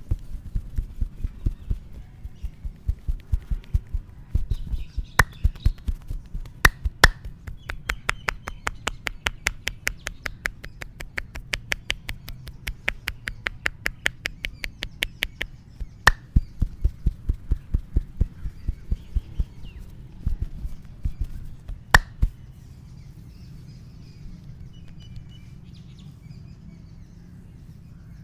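Rapid rhythmic hand strikes of a head and back massage, several slaps a second, with a few louder, sharper cracks among them. The strikes stop a little over three-quarters of the way through.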